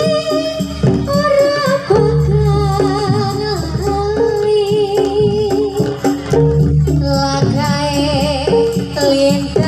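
Gamelan music accompanying a jaranan horse dance. A wavering, sung lead melody runs over drumming and a steady low bass.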